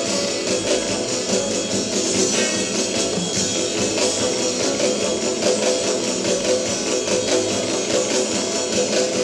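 Late-1950s instrumental rock-and-roll record: electric guitar played over a drum kit, at a steady beat.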